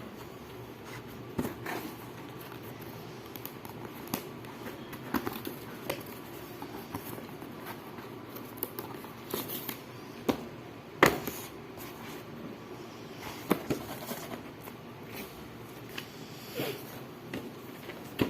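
Scattered clicks, taps and light scrapes of a box and its packaging being handled and opened, with one sharper click about eleven seconds in.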